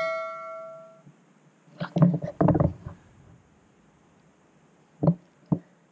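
A notification-bell ding from an edited-in subscribe-button animation, ringing out and fading away over the first second. About two seconds in comes a brief clatter, and near the end two short knocks about half a second apart.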